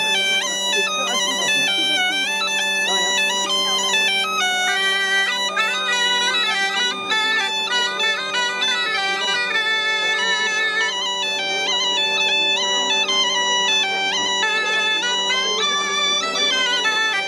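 Breton bagpipes playing a dance tune: a steady drone under a melody that steps quickly from note to note without a break.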